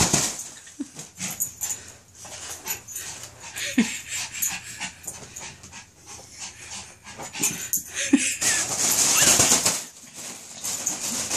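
A Yorkshire terrier tearing at a balloon: scratchy rubbing and rustling of the balloon's rubber, with a couple of short squeaks and a louder stretch of rustling in the second half.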